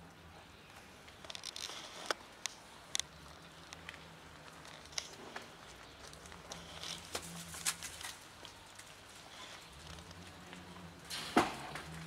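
A cat crunching dry kibble from a plastic container: scattered small clicks and crackles at irregular intervals, with a louder crackle near the end.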